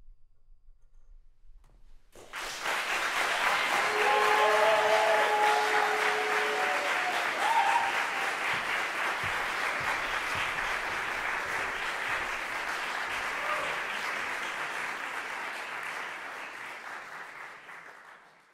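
Audience applauding a song recital. The applause starts suddenly about two seconds in after a brief silence, holds steady, and dies away near the end.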